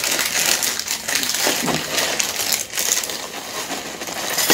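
Birthday Cake Pebbles crisp rice cereal poured from the box into a glass bowl: a steady rattling patter of small pieces hitting the glass.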